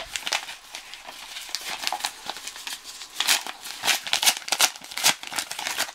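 A paper mailing envelope being handled and opened by hand, crinkling and rustling with many short crackles, busiest in the second half.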